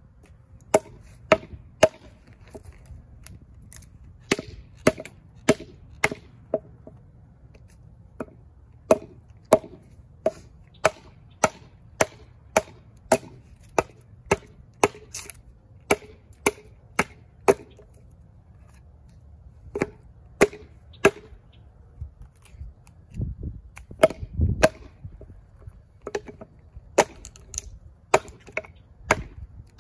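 Hatchet chopping into a cedar bowl blank, a run of sharp, separate strikes about one or two a second with a brief pause just past the middle. The strikes knock out chunks of wood between the chainsaw cuts to rough out the hollow. A few dull low thumps come about three-quarters of the way through.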